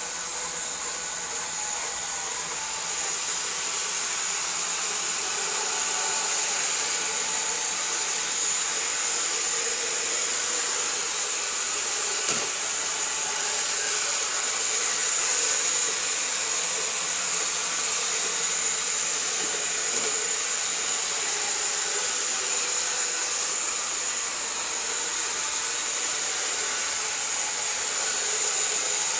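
Robot vacuum cleaner running as it travels across a wooden floor, a steady whirring with a strong high hiss. One brief knock about twelve seconds in.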